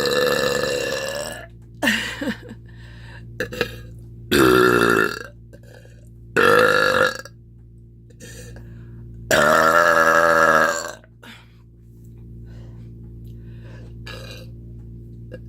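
A woman belching loudly after drinking milk: a long burp fading out about a second in, then three more, the last the longest at about a second and a half. Small throat sounds come between them.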